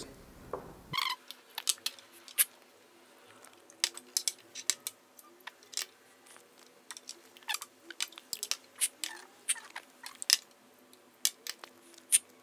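Several people slurping brewed coffee from small tasting cups in many short, sharp, irregular sips, with lip smacks between them, over a faint steady hum.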